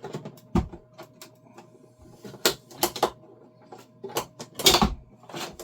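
Irregular plastic clicks and knocks from a Bambu Lab AMS unit being wiggled forward and back to work it loose after its screws and catch are undone, with a louder cluster of knocks near the end.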